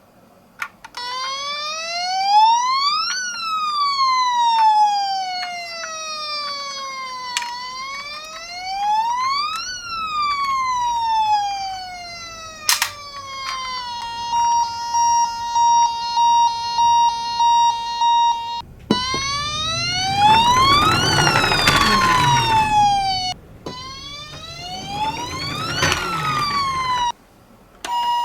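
Toy ambulance's electronic siren: a slow rising-and-falling wail, then a steady tone pulsing on and off for several seconds. The wail returns with the rolling noise of the toy car running down a slope, and everything stops abruptly near the end.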